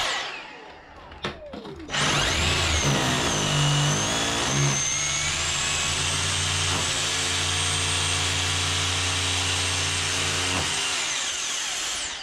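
A vacuum cleaner starts up about two seconds in, held at the hole to suck up the dust, while a hammer drill bores into the wall. The drill stops a little before the end and the vacuum winds down after it.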